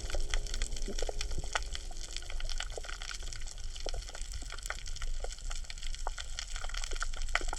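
Underwater coral reef crackle: dense, irregular clicks and pops over a low rumble of moving water. It is the crackling sound that the uploader calls the coral's 'breathing', possibly mixed with fish biting coral.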